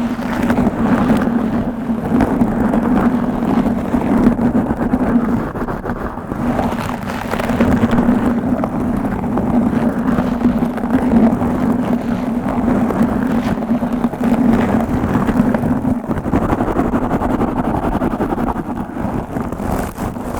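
Aggressive microphone scratching: rubbing and scratching directly on the microphone, a dense, continuous scratchy rumble with a steady low drone underneath.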